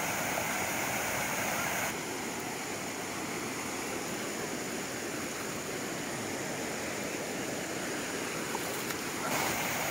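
Steady rushing of flowing water, like a stream. Its hiss thins abruptly about two seconds in and comes back near the end.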